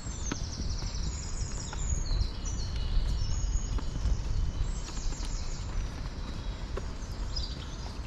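Footsteps walking along a dirt path, with songbirds chirping high-pitched phrases throughout over a steady low rumble.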